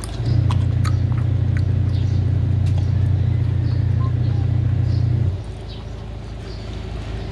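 Belgian Malinois puppy chewing and crunching raw chicken feet and kibble from a steel bowl, with sharp crunches scattered throughout. A loud, steady low rumble starts just after the beginning and cuts off about five seconds in.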